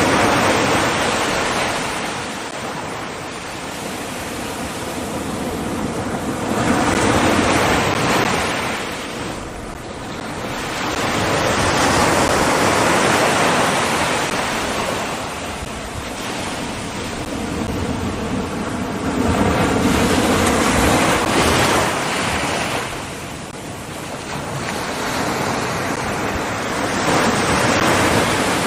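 Ocean surf breaking on a beach: a steady wash of waves that swells and ebbs about every six to seven seconds.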